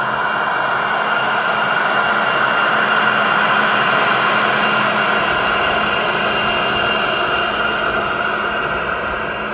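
G scale model freight train rolling past close by: a steady hum and rush of its wheels on the rails, loudest about three seconds in and easing off toward the end.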